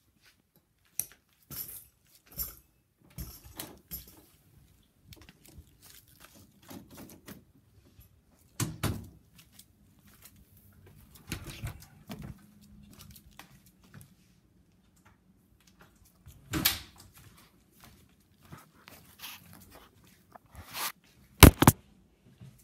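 Handling noise from a camera being picked up and moved about: irregular rustling and scattered knocks against the microphone, with two sharp, loud knocks near the end.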